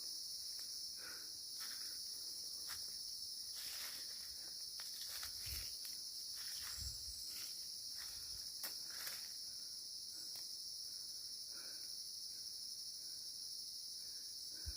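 Steady high-pitched drone of an insect chorus. Scattered rustles and ticks come through it, with a couple of dull low thumps around the middle.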